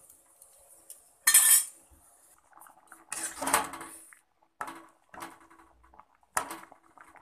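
A metal utensil clinking and scraping against a metal kadai of cooking dal and bottle gourd. There is a sharp clatter about a second in, a longer scraping clatter a few seconds in, and a few shorter knocks near the end.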